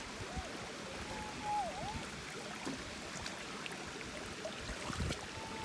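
Steady rush of flowing creek water, with a few short, faint whistled tones and soft knocks over it.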